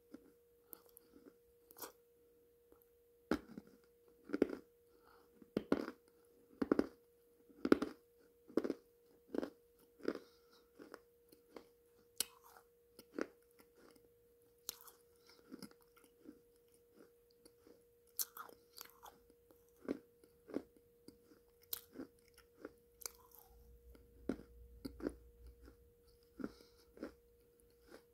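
Close-miked chewing and crunching of black clay pot paste with rolled pot pieces, with wet mouth clicks; sharp crunches come about once a second and are loudest in the first third. A faint steady hum runs underneath.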